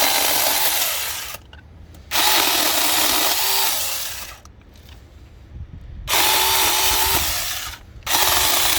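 Battery-powered mini pruning chainsaw with a brushed motor, run in three bursts of about two seconds each with short pauses between, its chain cutting green apple branches; the motor note dips and wavers as the chain bites.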